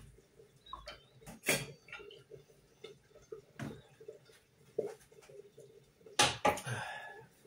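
Cookware being handled on a stove: a steel pot and a wooden spoon clattering in a few separate knocks, with the loudest cluster about six seconds in.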